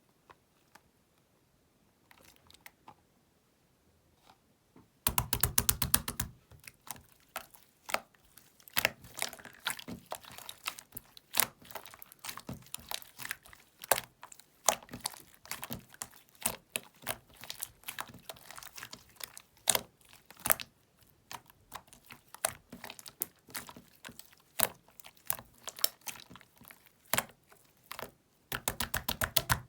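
Slime being pressed, stretched and folded by hand, giving sharp pops and clicks. It starts faint, then a fast run of clicks comes about five seconds in, followed by irregular pops and clicks.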